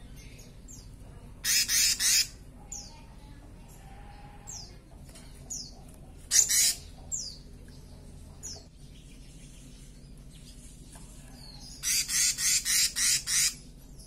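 Male black-naped monarch calling with a harsh, rasping call given in short series: three quick notes about a second and a half in, one a little past six seconds, and a fast run of about seven near the end. Between them come short high chirps sliding downward.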